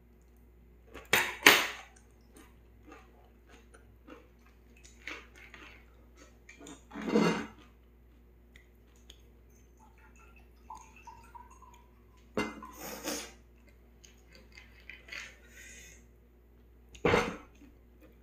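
Chopsticks and dishes clattering against a metal pot and mug: a handful of sharp knocks and clinks, the loudest about a second in, with quieter sounds of juice being poured into a mug midway.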